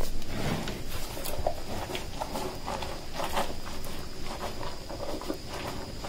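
Warthog grazing in grass: irregular soft rustling and snuffling. A steady high insect trill sits behind it.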